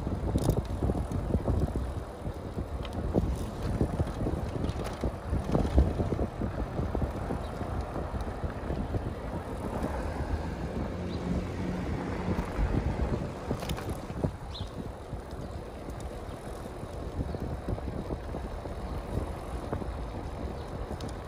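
Wind rushing over the microphone of a bicycle-mounted camera riding along a city street, with rattles and knocks from the bike going over bumps in the road. The knocks are busiest over the first several seconds, then it settles to a steadier rush.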